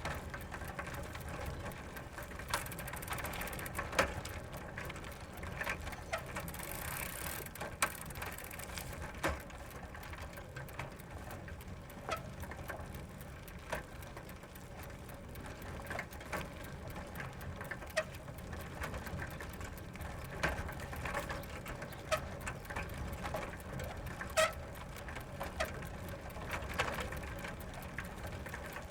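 Bicycle rolling slowly over gravel: a steady low rumble of tyres on loose stones with irregular crunches and clicks, and ratchet-like ticking of the freewheel.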